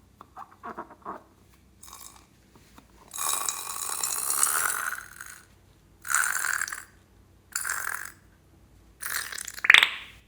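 Slime being handled and squished: a few soft clicks, then several noisy bursts of a second or two each. A short squeak comes near the end.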